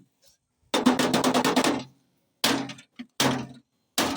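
Crowbar blows on a microwave's metal body: about a second of rapid clattering hits, then three separate heavy strikes, each ringing briefly in the sheet-metal cabinet.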